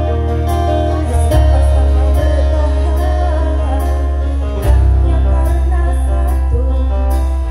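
Live band music over a stage PA: a woman singing into a microphone over keyboard, guitar and a heavy bass line, with a steady beat of percussion hits. The bass changes note about a second in and again just before five seconds in.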